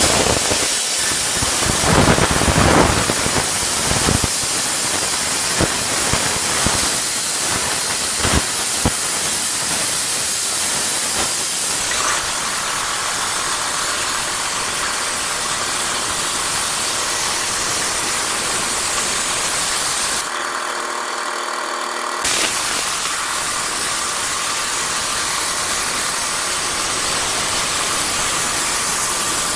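Small plasma cutter cutting thick steel plate: a loud, steady hiss of the cutting arc and air, crackling through the first several seconds, with the sound briefly thinning about two-thirds through.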